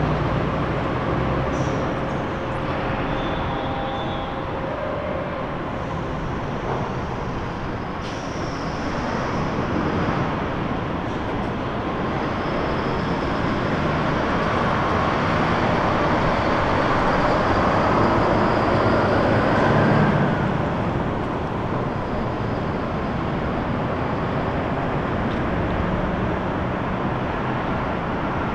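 Steady traffic noise from passing vehicles. It swells to a peak about two-thirds of the way through as a vehicle passes, with a rising whine, then settles back.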